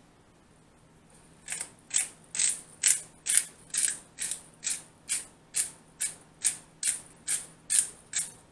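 Hand-twisted spice grinder being worked in a steady rhythm, about sixteen short grinding strokes at a little over two a second, starting about a second and a half in.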